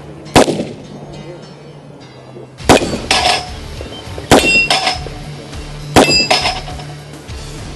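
Revolver shots, four in about six seconds. Each of the last three is followed a fraction of a second later by the ringing clang of a steel target being hit.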